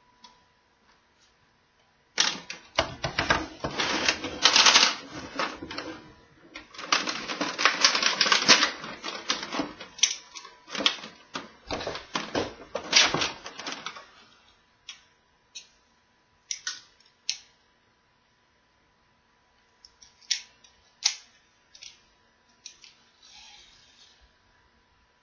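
Hard plastic toy tool pieces clicking and clattering as they are handled, in a dense run of rapid clicks that thins out about halfway through into scattered single clicks.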